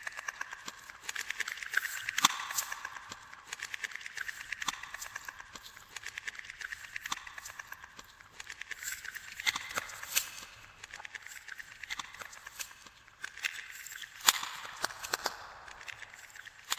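Glossy slime being squished and worked by hand, with dense fast clicking and crackling of small air pockets popping, and a few louder pops.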